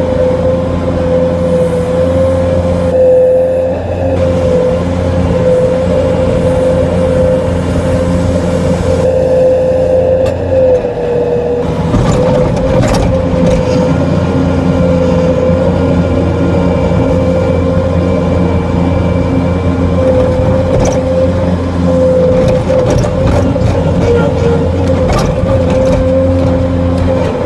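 Bobcat skid-steer loader's engine running steadily, heard from inside the cab, with a strong steady whine over it and scattered clicks and rattles in the second half.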